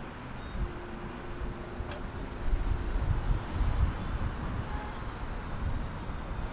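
Low-floor electric tram moving slowly along its street track, a low rumble with faint steady whines through the first few seconds and a single short click about two seconds in.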